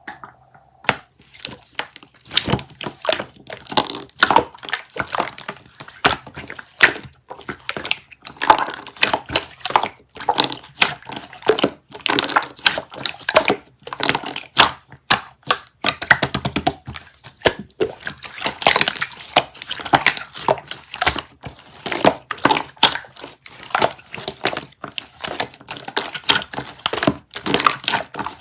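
Slime being squeezed and pressed by hand, giving a dense, irregular run of sticky clicks and pops.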